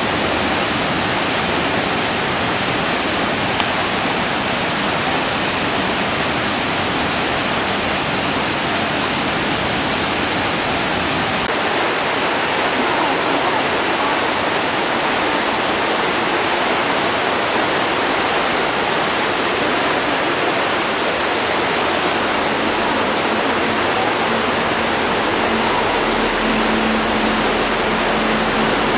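Rushing water, a steady and unbroken loud hiss of fast-flowing water.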